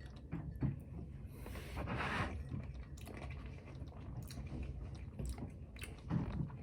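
A person chewing food close to the microphone, with soft scattered clicks of mouth and teeth and a brief hiss about two seconds in.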